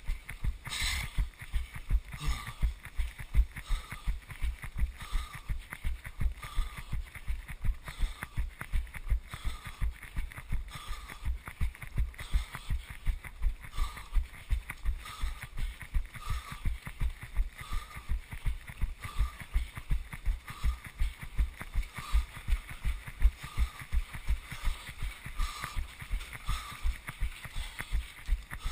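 A runner's footfalls thudding through a body-worn action camera at running cadence, about three a second, over a steady hiss.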